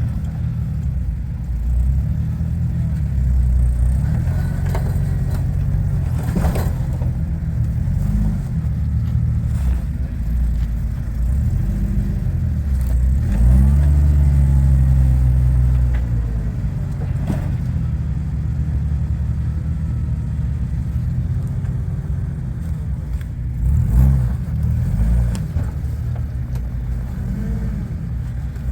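An off-road 4x4 truck's engine runs at low revs and revs up for a louder stretch about halfway through. There are a couple of sharp knocks along the way.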